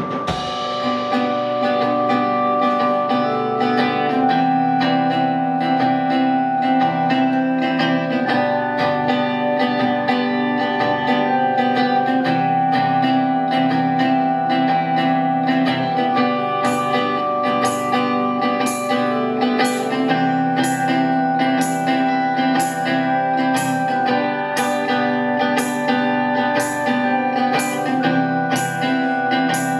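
Live rock band playing without vocals: strummed guitar with long held keyboard notes over a drum kit. About halfway through, a steady cymbal beat comes in, striking a little more than once a second.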